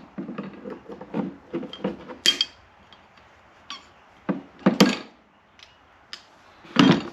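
Metal hand tools being rummaged through and set down on a cluttered workbench: a rattling clatter for the first couple of seconds, then scattered clicks and several sharp knocks, the loudest three spaced about two and a half seconds apart.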